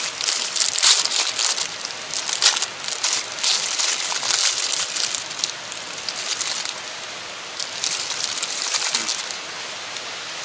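Crinkling of a thin plastic bread wrapper being torn open and handled, dense for the first five seconds or so, then lighter rustles that stop about nine seconds in, leaving a steady background hiss.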